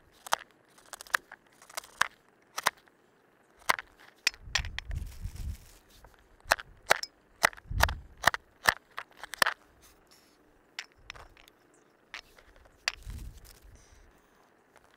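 A knife chopping carrots on a plastic cutting board: a string of irregular sharp knocks, thinning out near the end, with a few dull low thumps among them.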